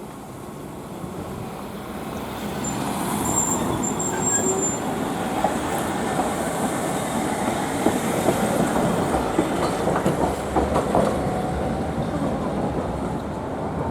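Hankai Tramway streetcar running on its rails, growing louder over the first few seconds, with a brief high wheel squeal and scattered wheel clacks on the track.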